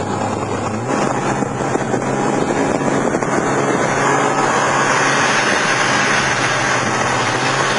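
Snowmobile engine running steadily while riding over snow, its note rising slightly about a second in, with wind noise on the microphone.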